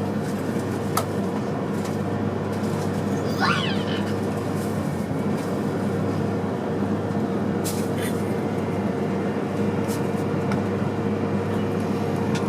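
Steady cabin noise inside an E3 series Shinkansen car, an even hum with a low drone running under it. A few light clicks, and a brief high wavering squeak about three and a half seconds in.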